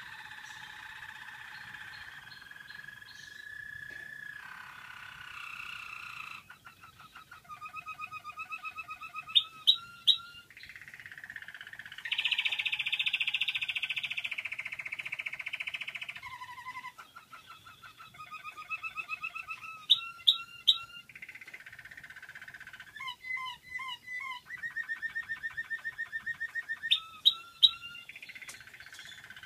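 An American Singer canary singing a long, varied song of rolling trills that shift in pitch every few seconds, broken three times by a set of three loud, sharp notes.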